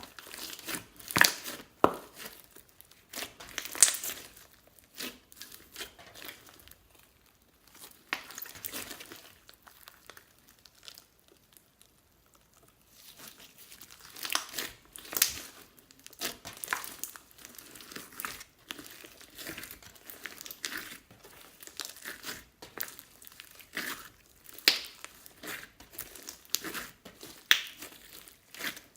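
Slime being squished and stretched by hand, giving irregular flurries of sharp crackling pops and crinkly clicks, with a quieter lull partway through.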